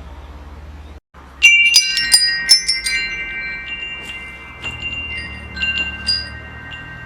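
Metal wind chimes struck in a quick flurry, their tubes ringing on in several long, clear tones, then a few lighter strikes near the end, over a low steady rumble. The sound drops out briefly about a second in, just before the chimes start.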